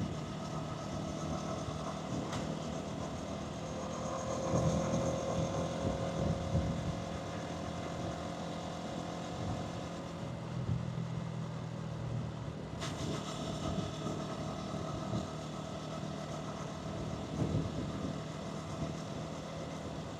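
Hansom Bike Benett 125cc motorcycle engine and exhaust running steadily on the move, with road and wind noise. It gets a little louder about four to six seconds in.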